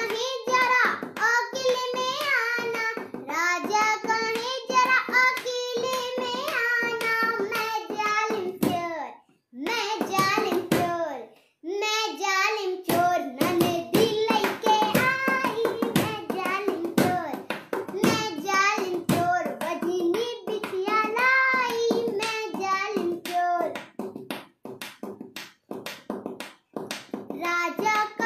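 A young girl singing an Awadhi folk song unaccompanied, with two short breaks about nine and twelve seconds in.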